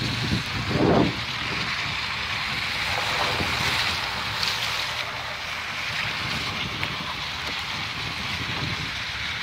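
Steady rushing hiss of wind and tyres on a wet road, heard at a moving car's side window, with a brief louder swell about a second in.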